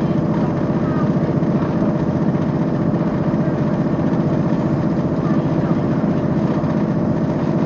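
Diesel train's engine running steadily with an even hum and rapid pulsing, heard from inside the carriage.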